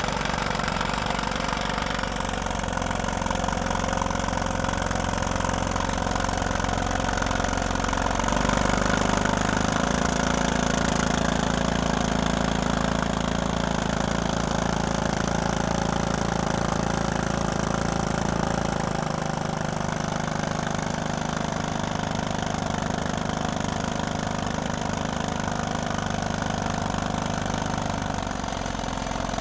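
Crawler drill rig's engine running steadily. Its note rises in pitch about eight seconds in and falls back near the end.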